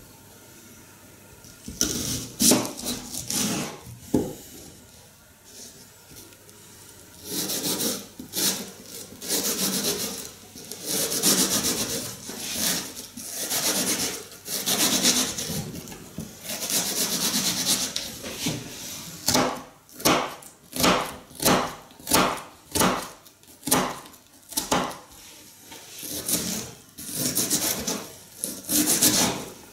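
Kitchen knife cutting an onion on a wooden cutting board: a few drawn slicing strokes through the onion, then, from about two-thirds of the way through, a steady run of knife knocks on the board, about two a second, as the onion is finely diced.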